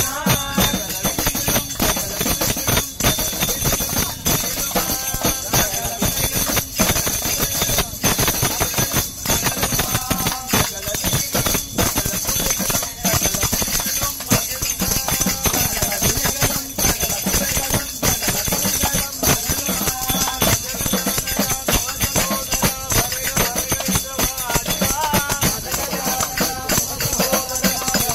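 Group of devotees singing an Ayyappa bhajan, a Hindu devotional song, with jingling, rattling percussion keeping a steady beat.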